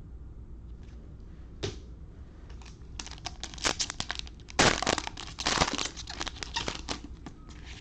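A trading-card pack's wrapper being torn open and crinkled. There is one short rustle a little under two seconds in, then a dense crackle from about three seconds, loudest in the middle, which dies down near the end.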